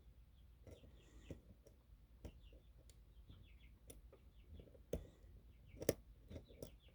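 Faint, scattered clicks and ticks of a lock pick working the pins of a custom pin-tumbler challenge lock under tension, with two sharper clicks about five and six seconds in, as the pins are set back into a deep false set.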